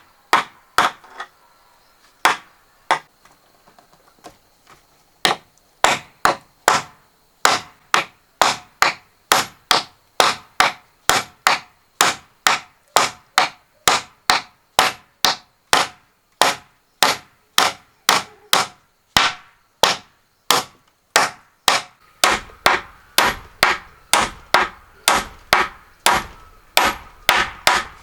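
Hammer driving nails into wood: a few scattered blows, then about five seconds in a steady run of strokes at about two a second.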